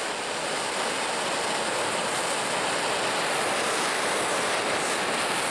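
Propane torch burning steadily: a continuous hiss and rush of gas and flame.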